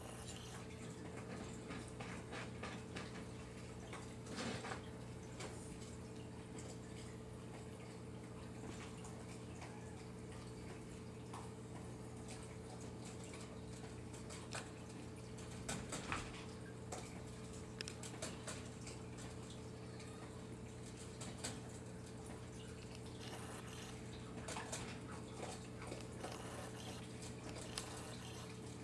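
Raccoon eating cat food from a bowl: irregular small crunches and clicks of chewing, over a steady low hum.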